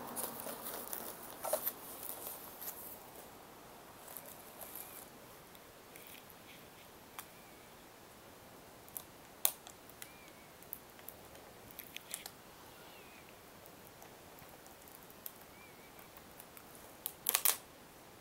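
Tissue paper rustling and crinkling as it is folded back, fading after the first couple of seconds. Then slower handling of packaging with scattered light taps and clicks, and a louder burst of them near the end.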